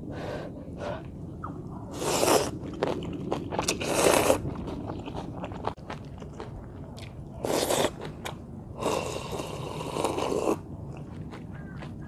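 Noodles slurped up out of spicy soup and chewed, in several noisy slurps with the longest near the end, between small clicks of chewing and chopsticks.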